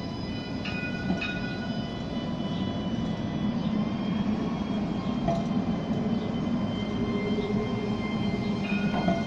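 Alstom Citadis electric tram moving slowly past at close range, a steady running rumble that grows slightly louder after a few seconds.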